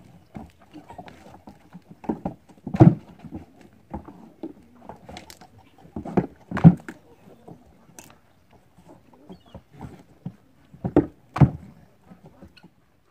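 Goats' hooves knocking, scuffing and stamping on a wooden plank platform as they jostle and butt, with a few sharper, louder knocks about three seconds in, near seven seconds and twice near eleven seconds.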